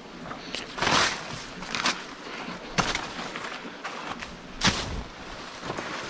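Footsteps on dry leaf litter and twigs, with leaves and stems brushing, in irregular short noisy bursts about once a second.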